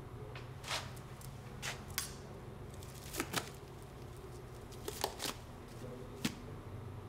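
Medical instruments and plastic wrappers being handled on a tray: about eight short, light clicks and rustles over a steady low hum.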